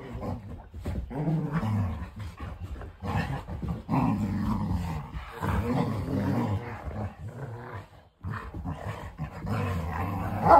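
English Springer Spaniels play-growling as they wrestle: low growls in repeated stretches with short breaks.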